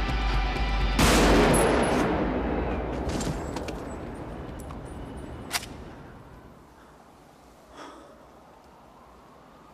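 Soundtrack music cuts off about a second in at a single loud rifle shot, which echoes and dies away over the next few seconds. A few faint clicks follow, with one sharper click past the middle.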